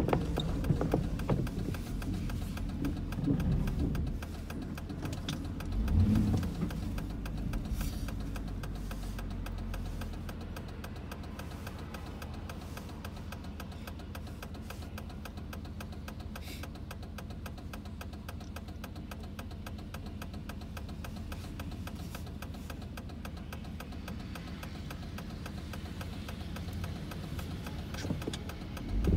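Car stopped in traffic, heard from inside the cabin: a low, steady idling hum with a few soft thumps in the first six seconds. Near the end a city bus drives past in front and the sound swells.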